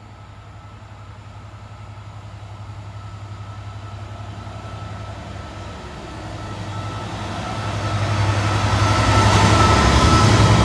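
Diesel-hauled freight train approaching: a steady low engine drone that grows louder as it nears, reaching its loudest in the last couple of seconds as the locomotive and its hopper wagons pass close by.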